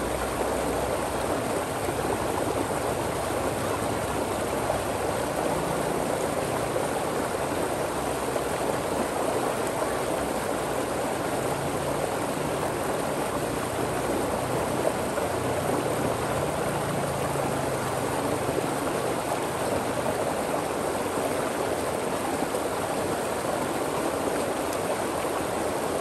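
Water flowing and splashing over and between rocks: a steady, unbroken rush.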